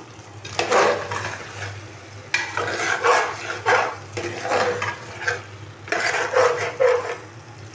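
A metal spatula stirs chunks of bottle gourd and chicken in a metal pot, scraping and squelching in four strokes, as the curry sizzles while it is fried down (bhuna) on a low flame.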